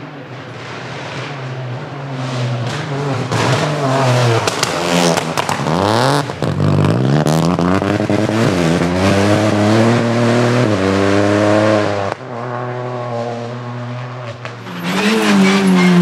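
Rally car engine revving hard, its pitch climbing and dropping again and again as it works through the gears, growing louder over the first few seconds. A few sharp cracks come around four to six seconds in. The note falls away about twelve seconds in, and a fresh burst of hard revving comes near the end.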